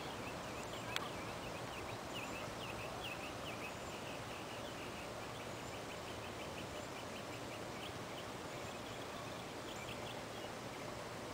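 Steady outdoor background hiss with a small bird singing over it: a run of short high chirps, a fast trill in the middle, then a few more notes near the end. A single sharp click sounds about a second in.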